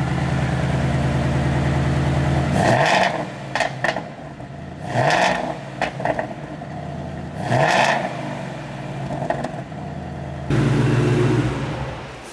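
Ford Mustang GT's 5.0 Coyote V8 through a MagnaFlow xMOD catback exhaust with the block-off plate fitted, its second-quietest setting. It idles steadily, is blipped several times (three big revs and two smaller ones), then settles back to idle. The note is much quieter than fully open.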